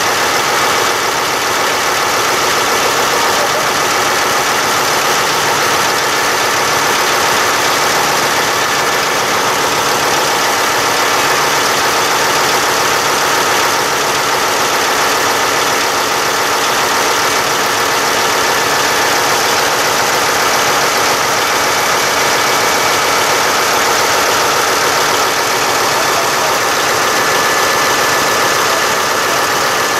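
Tractor engine running steadily at a constant speed, with no revving.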